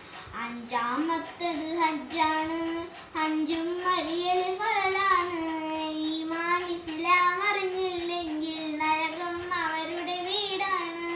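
A young girl singing an Islamic devotional song solo, without accompaniment, in long held notes that glide and waver in pitch.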